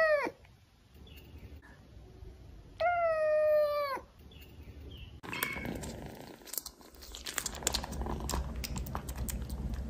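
Kitten meowing: the end of one meow, then one long, steady meow about three seconds in. From about five seconds in, a kitten licks and chews at a lickable treat from a packet, with many quick wet clicks.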